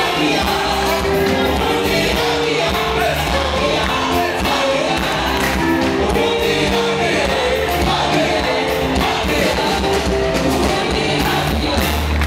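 Live gospel band music with singing: held keyboard chords, a heavy bass line and a steady drum beat under the voices.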